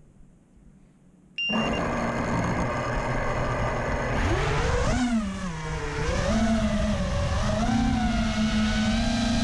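Racing quadcopter's brushless motors and propellers: after a short high beep they start up suddenly about a second and a half in, hum steadily, then from about four seconds the pitch rises and wavers with the throttle.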